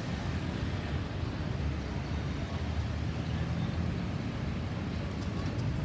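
Steady low rumble of road traffic, with no siren sounding.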